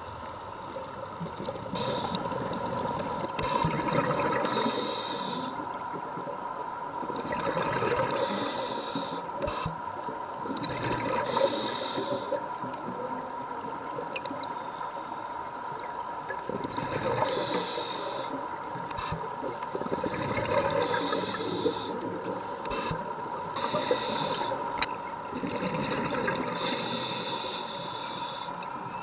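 Scuba diver breathing through a regulator underwater: short hissing inhales every few seconds, each followed by a bubbling, gurgling exhale, over a faint steady high tone.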